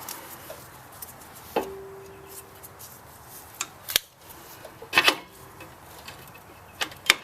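Metal tools and brake caliper parts clinking and clicking as they are handled, about half a dozen sharp metallic clicks spread through, one of them, a little over a second in, ringing on briefly.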